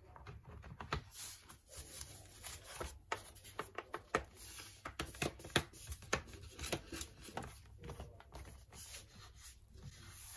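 Lenovo 330S laptop base cover being pressed onto the chassis by hand: a run of irregular small clicks and snaps as its edge clips seat, with hands rubbing on the panel.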